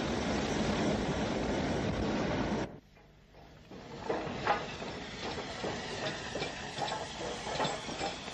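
Steam train running: a steady rumble and hiss that cuts off abruptly a little under three seconds in. After a short lull come irregular clanks and chuffs over a lighter hiss.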